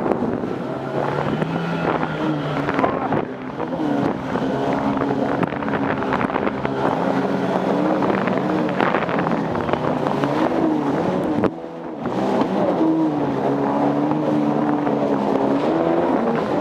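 Jet ski engine running, its pitch rising and falling as the throttle is opened and eased, with a short drop about two-thirds of the way through. Wind buffets the microphone.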